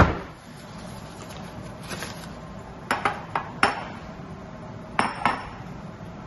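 Kitchen dishes and utensils knocking and clinking: one sharp knock at the start, a quick run of clinks about three seconds in, and two more about five seconds in.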